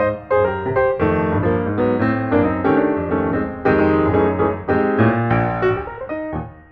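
Background piano music: a quick run of notes over a low bass line.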